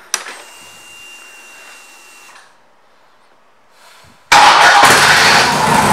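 Harley-Davidson Electra Glide V-twin being switched on: a click, then a faint whine for about two seconds typical of the fuel pump priming. About four seconds in the engine fires abruptly and settles into a loud idle through its aftermarket exhaust.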